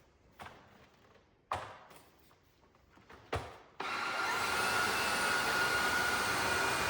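Three short knocks, then about four seconds in a Tineco Floor ONE S5 cordless wet-dry vacuum switches on abruptly and runs steadily, its motor noise carrying a high whine.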